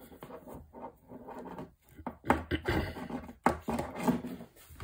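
Hands handling a plastic 12-volt water pump and its push-fit fittings on a wooden board: rubbing and scraping of plastic on wood with a few sharp clicks and knocks. It gets louder about halfway through.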